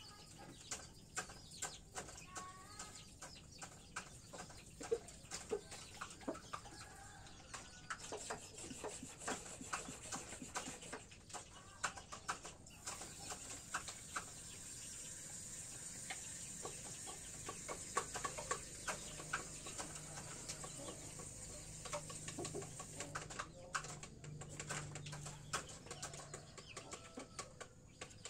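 Chickens clucking now and then, with many sharp little taps and clicks throughout.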